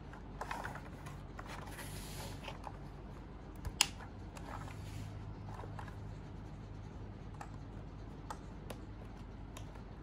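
Hands handling the white plastic case of an Ajazz K870T mechanical keyboard, rubbing and sliding over it, with one sharp click about four seconds in and a few light ticks after.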